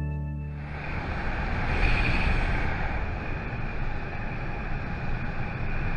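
Wind buffeting and engine noise from a motorcycle being ridden at highway speed, recorded on the bike, as the last notes of a music track die away in the first second. It cuts off abruptly at the end.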